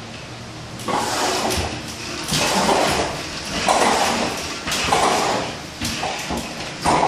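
Drywall taping banjo drawn along a wall-ceiling angle, paper tape feeding out and scraping into the corner in about five short sliding strokes.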